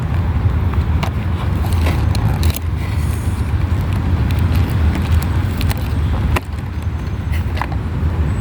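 Steady low outdoor rumble with scattered small clicks and taps of objects being handled.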